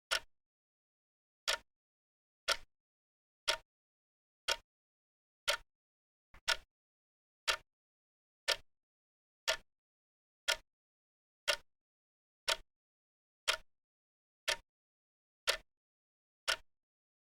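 Clock ticking sound effect: sharp, short ticks about once a second, evenly spaced, with dead silence between them.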